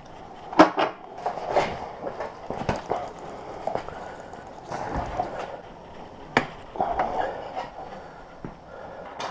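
Irregular metal clanks and knocks from hands-on work on a stripped-down motorcycle and its parts, the sharpest about half a second in.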